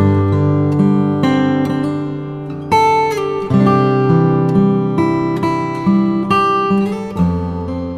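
Background music: acoustic guitar playing picked and strummed chords, with notes struck every half second or so and left to ring.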